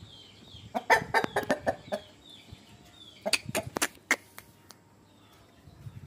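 Aseel rooster clucking: a quick run of short, sharp clucks about a second in, and a second run around three and a half seconds in. Faint high chirps repeat in the background.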